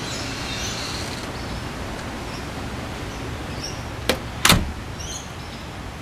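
Bird ambience in a walk-through aviary: a few short, high chirps over steady low background noise. Two sharp knocks half a second apart come about four seconds in, and they are the loudest sounds.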